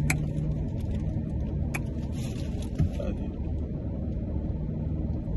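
Steady low rumble of a car's interior with the car running, heard from inside the cabin, with two short kissing smacks, one right at the start and one just under two seconds in.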